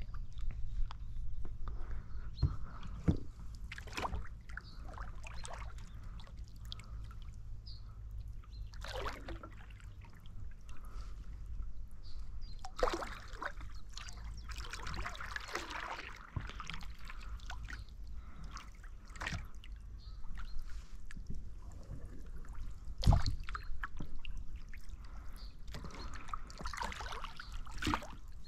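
Oars of an inflatable boat being rowed: the blades dip and pull through the water in irregular strokes, with splashing and water dripping off them. A single sharp knock sounds a little past two-thirds of the way through.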